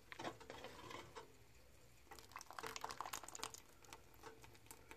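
Faint stirring of a thick, gently simmering reduced sauce with a spoon in an aluminium pot: soft liquid sounds and light clicks of the spoon, which come most thickly a couple of seconds in.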